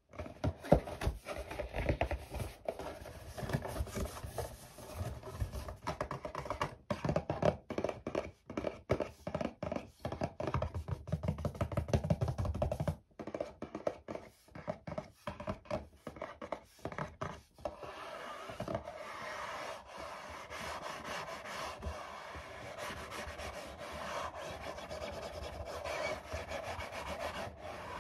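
Fingertips and nails tapping and scratching quickly on a hard white panel, the taps thinning out about halfway through, then a steady rubbing and scratching of nails across the surface for the last ten seconds or so.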